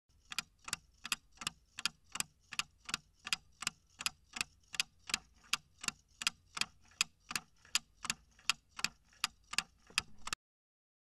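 Clock-style ticking sound effect of a quiz countdown timer: sharp, even ticks a little under three a second, cutting off suddenly shortly before the end as the countdown runs out.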